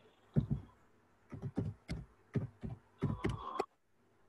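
Computer keyboard keys being typed, a short word tapped out in several quick runs of keystrokes.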